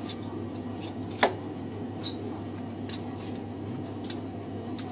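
Butcher's knife deboning lamb: light clicks and scrapes of the blade working along the bone, with one sharp, louder click about a second in. A steady low hum runs underneath.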